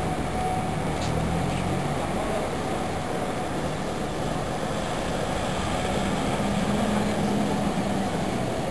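Steady rumble of vehicle traffic and engines running, with a low hum and no sudden events.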